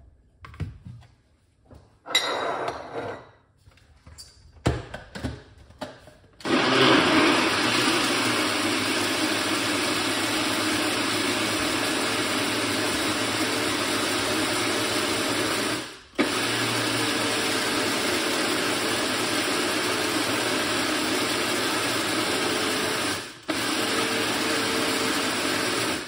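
Countertop blender running at one steady speed, blending chunks of beetroot with ginger, lime and parsley for juice. It starts about six seconds in after a few knocks, then stops for a moment twice and starts again.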